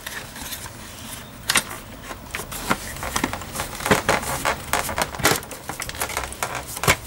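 Plastic door-pocket lid of a Mercedes R129 door panel being pressed and worked into place by hand: an irregular string of clicks, knocks and light scrapes of plastic against the panel.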